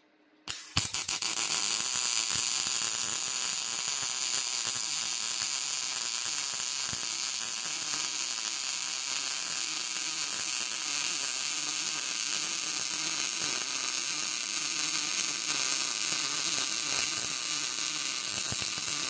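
MIG welding arc with gas-shielded solid wire, laying a straight bead on steel plate: a steady, crisp arc that strikes just under a second in and runs without a break.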